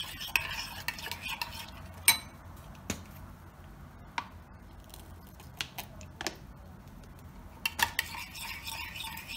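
A metal spoon stirs and scrapes a thick sauce in a ceramic bowl. It stops about two seconds in with a sharp clink, then comes a quieter stretch with a few light clicks and taps. The stirring starts again near the end.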